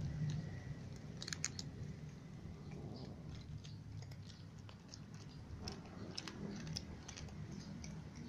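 Cats eating dry kibble: an irregular run of small crisp crunches and clicks over a low steady hum.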